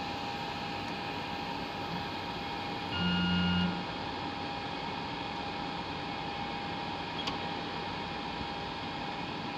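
The WDS-720 BGA rework station runs steadily, its fans and hot-air heater giving an even hiss with a constant tone. A short beep-like tone sounds about three seconds in, and a faint click comes later.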